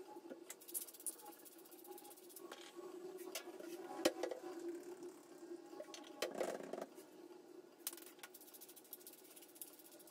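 Cutlery clicking and scraping against a dish while someone eats a meal of fish and rice. The sharpest click comes about four seconds in, and a steady low hum runs underneath.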